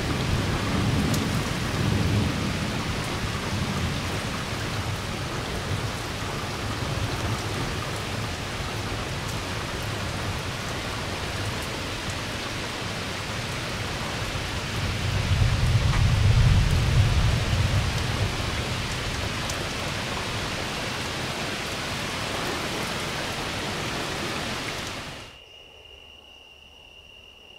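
Heavy rain pouring steadily during a thunderstorm, with thunder rumbling low underneath; the loudest rumble comes a little past halfway. Near the end the rain cuts off abruptly, leaving a faint steady high insect trill.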